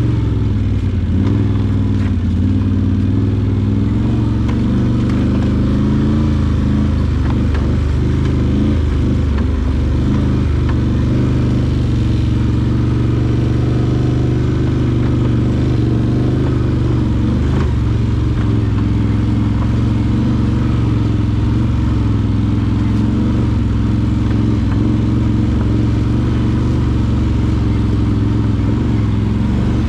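Can-Am Outlander 850 XT ATV's Rotax V-twin engine running steadily while riding a trail, with occasional knocks; the revs dip and rise again around eight to ten seconds in.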